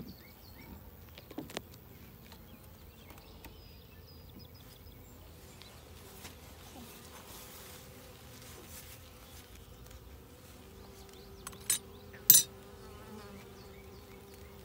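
Honey bees buzzing around an open hive box, a faint steady drone, with a steadier hum joining about ten seconds in. Two sharp clicks near the end, as the frames are handled, are the loudest sounds.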